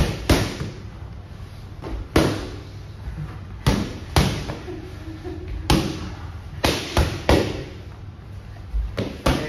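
Boxing-glove punches landing on hand-held focus mitts: about eleven sharp smacks, some single and some in quick two- and three-punch combinations.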